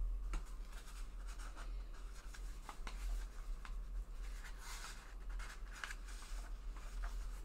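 Marker pen tip scratching across journal paper as a line is drawn, in short irregular strokes with small clicks, over a steady low hum.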